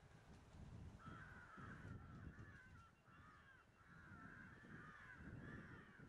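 Mynas giving a run of harsh, chattering calls that start about a second in and keep going, several overlapping.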